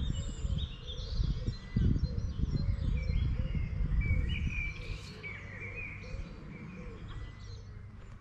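Small birds singing and chirping, with many short, high calls overlapping. Under them runs a low rumble that fades somewhat after the middle.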